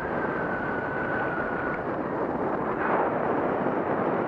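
Wind rushing over the microphone in flight under a paramotor wing, a steady rough noise, with a thin high whistle for about the first two seconds.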